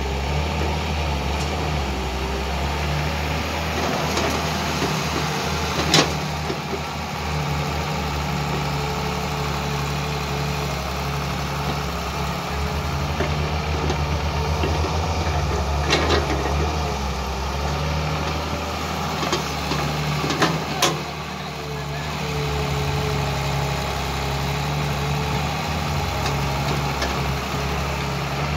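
Diesel engine of a Caterpillar E120 hydraulic excavator running steadily under load as it digs and dumps sand into a dump truck. A few sharp knocks stand out, spaced several seconds apart.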